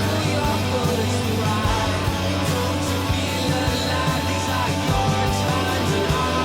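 Background rock music with guitar, vocals and a steady beat.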